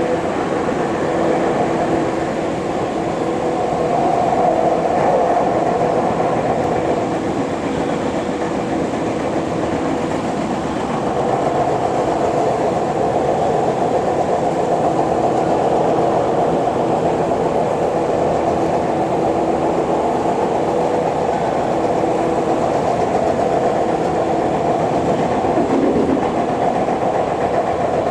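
Tokyu 8500 series commuter train running, heard from inside a passenger car: a steady hum of several tones over rumble and rail noise, getting a little louder about eleven seconds in.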